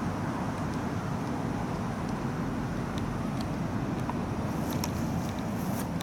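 Steady low outdoor background rumble, with faint light clicks scattered through the last second or so.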